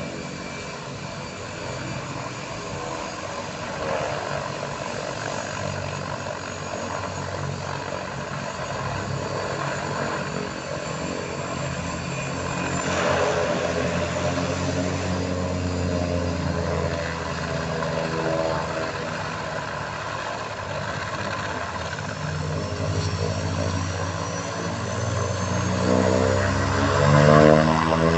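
Thrush 510P crop duster's Pratt & Whitney PT6A turboprop running as the plane taxis: a steady propeller drone with a high turbine whine. It slowly grows louder, and near the end the pitch shifts and the sound peaks as the plane rolls closer.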